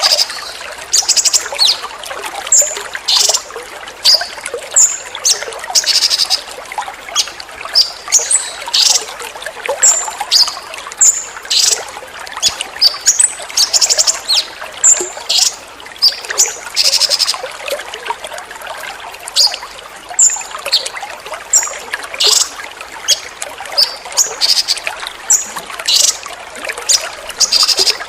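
Water trickling steadily, overlaid with a songbird's short, sharp, high-pitched call bursts repeating about once or twice a second: a rapid 'tembakan' song used as a training recording for cage birds.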